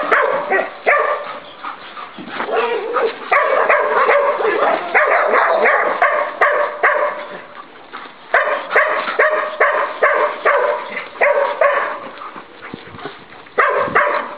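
Dogs barking and yapping repeatedly, a dense run of short barks that eases off briefly about two, eight and thirteen seconds in.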